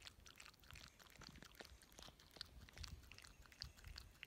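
Small dog lapping milk from a glass bowl: faint, irregular wet clicks of the tongue in the liquid.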